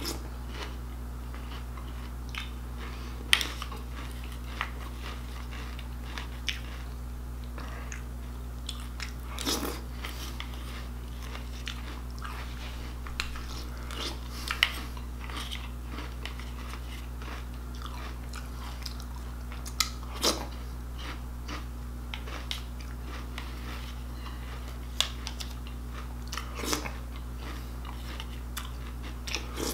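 A man chewing and crunching mouthfuls of cereal, with scattered sharp clicks and scrapes of a plastic spoon in a plastic bowl, over a steady low hum.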